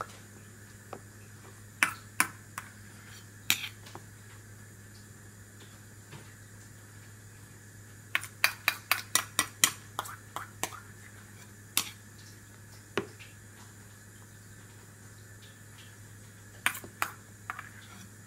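Clear plastic bowls clacking as a toddler handles and knocks them: scattered sharp clicks, with a quick run of about ten around the middle and a few more near the end, over a faint steady hum.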